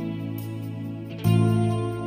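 Soft instrumental background music with held chords; a new, louder chord comes in a little over a second in.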